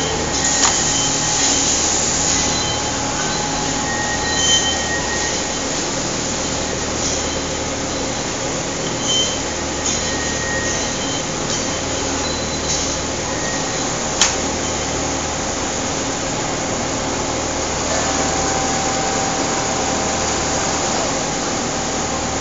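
Richpeace automatic pattern sewing machine running, under a steady mechanical din of other garment-factory machines, with one sharp click about fourteen seconds in.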